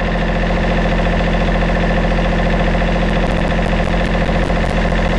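Volvo Penta 2030 three-cylinder marine diesel idling steadily, run up to operating temperature so the oil is warm before it is drained.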